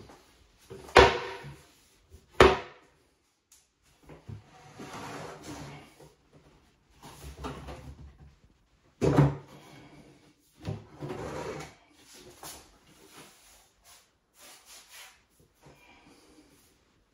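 A particleboard vanity cabinet being handled and shifted: three sharp wooden knocks, the loudest two close together about a second in and the third about nine seconds in, with stretches of scraping and shuffling between them.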